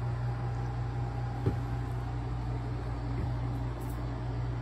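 Steady low mechanical hum of a running household cooling appliance, with two faint knocks, about a second and a half in and a little after three seconds in.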